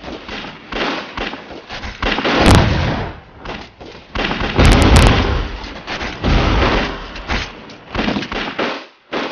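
Gunfire and explosions from a battle: many rapid shots throughout, with two heavier blasts, about two and a half and five seconds in.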